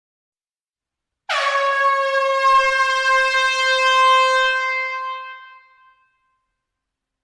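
Air horn blowing one long blast at a single steady pitch, starting abruptly about a second in and fading out after some four and a half seconds.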